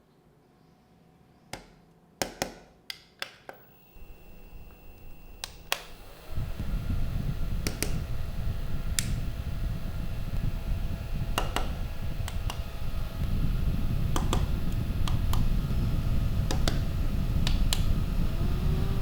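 Sharp clicks from handling a mini desk fan and its buttons, then about six seconds in the fan starts running and its airflow rumbles steadily on the microphone, growing louder about two-thirds of the way through.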